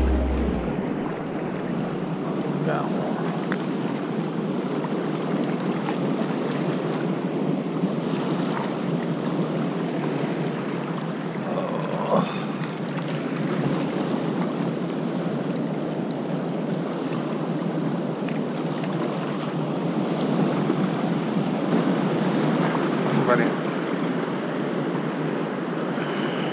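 Steady rushing of water pouring from a dam spillway gate and churning the river below it, with a few brief faint sounds over it, one a little louder about twelve seconds in.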